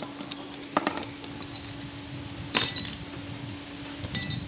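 Metal pieces clinking against each other in three sharp, ringing clinks, over a steady low hum.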